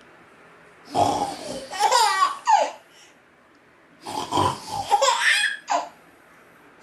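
A baby of nearly six months laughing in two bursts of giggles, the first about a second in and the second about four seconds in, with a short pause between.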